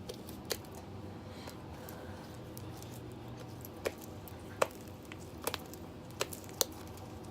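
Homemade slime being squeezed and handled, giving a few scattered sharp clicking pops over a steady low room hum.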